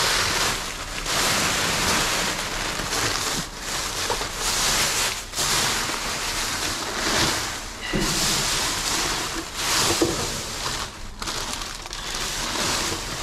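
Plastic trash bags, bubble wrap and plastic packaging crinkling and rustling as gloved hands rummage through them, swelling and easing unevenly, with a sharper crackle about ten seconds in.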